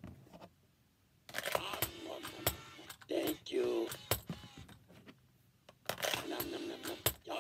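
Cookie Monster talking plush toy (Count n' Crunch) playing its recorded voice in three short stretches about a second, three seconds and six seconds in, with sharp mechanical clicks from its moving mouth in between.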